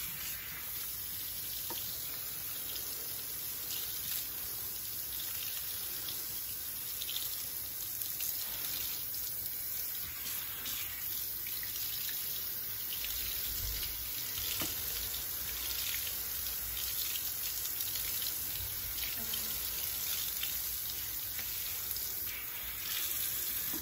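Kitchen faucet running steadily into a sink, the stream splashing over a stainless-steel mesh grill splatter shield as it is rinsed of soap.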